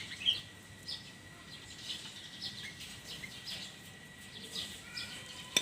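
Faint bird chirps scattered through a quiet background, with a faint steady high-pitched tone.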